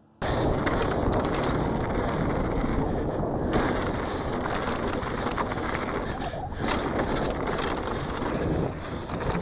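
Downhill mountain bike ridden fast down a dirt trail, heard from a camera on the bike or rider: a loud, continuous rush of tyres on dirt and wind on the microphone, with the bike rattling and knocking over bumps. It starts abruptly about a quarter second in.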